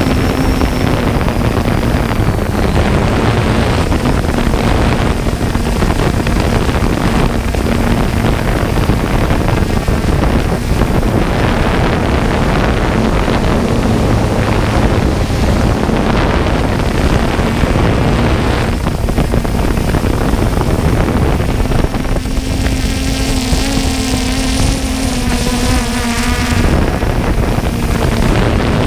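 Multirotor drone's motors and propellers running steadily, heard from the drone's own camera, with wind rushing on the microphone. About three-quarters of the way through, the motor hum turns clearer and wavering for about four seconds.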